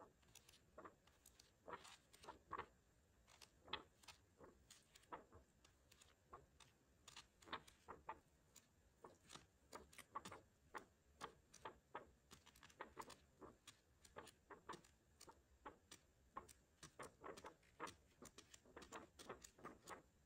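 Faint rustling and small ticks of sheets of craft paper being leafed through and handled, irregular, about two or three a second.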